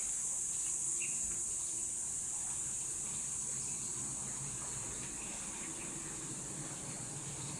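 Steady high-pitched chorus of insects such as crickets or cicadas, an unbroken drone.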